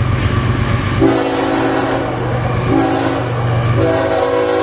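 Diesel locomotive running with a steady low rumble, then sounding its multi-chime air horn in long blasts from about a second in, the chord shifting briefly partway through.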